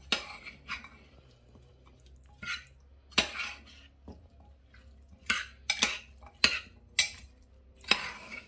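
Metal spoon stirring diced beef and vegetables in a ceramic slow-cooker crock, clinking and scraping against the pot in a string of sharp, irregular knocks.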